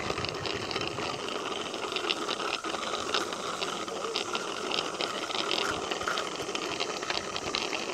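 Child's bicycle rolling along an asphalt path: a steady hiss of tyres on the rough surface, with frequent small rattles and clicks.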